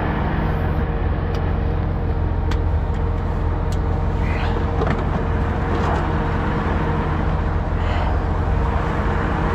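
Heavy diesel truck engine idling steadily under a haze of motorway traffic noise, with a few sharp clicks and light clatters of equipment being handled in a truck side locker.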